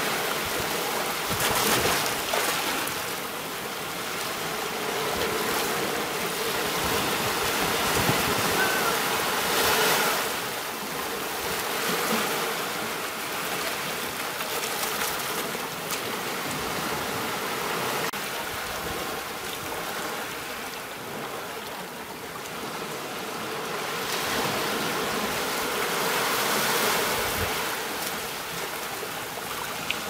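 Ocean waves washing up onto a shore and draining back, the wash swelling and fading every several seconds.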